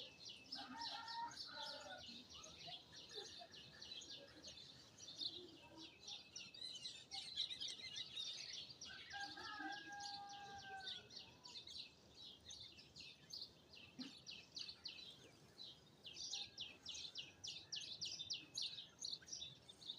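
Small birds chirping in fast runs of short, high notes, thickest at the start and again in the last few seconds, with a few lower, longer calls mixed in about a second in and near the middle.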